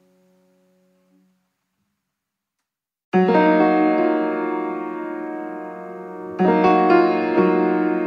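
Background piano music: a held note dies away, about two seconds of silence follow, then a loud chord is struck about three seconds in and left to ring and fade, with new chords struck twice near the end.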